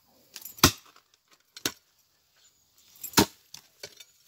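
A hoe chopping into soil and roots while digging a trench: three sharp strikes about a second and a half apart, with faint scraping of earth between them.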